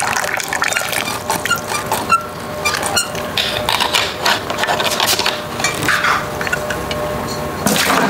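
Water running from an Odyssey Argos lever espresso machine's group and portafilter into a metal funnel during a test shot, with small metal clicks and clinks of the lever and portafilter.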